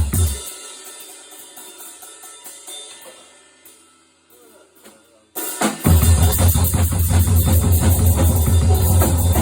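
Drum kit played in an experimental noise piece. The loud, dense playing breaks off at the start and leaves a thin ringing texture that dies away to very quiet. About five seconds in, loud drumming with heavy bass drum and cymbal wash crashes back in.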